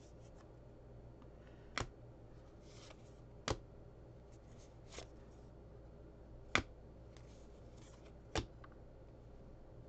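Stack of cardboard trading cards being flipped through by hand, one card at a time. A sharp snap of card stock comes about every one and a half to two seconds, five in all, one of them softer, with faint sliding between.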